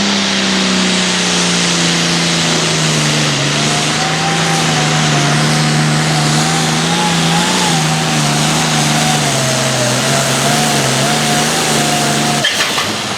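Turbocharged diesel Hot Farm pulling tractor under full load, dragging a weight sled. The engine note runs steady and sinks slowly in pitch as it loads down, with a wavering whine above it. The sound stops abruptly near the end.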